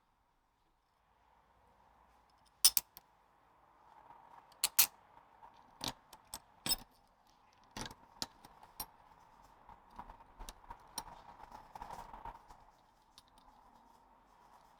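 Metal parts and hand tools clinking and knocking on a differential during the fitting of its crown wheel: a string of sharp separate clinks, then a run of lighter quick rattles about ten seconds in.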